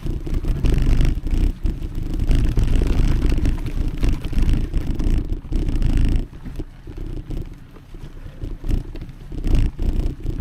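Mountain bike riding along a leaf-strewn, muddy dirt singletrack: tyre and frame noise over a low rumble. It gets quieter about six seconds in.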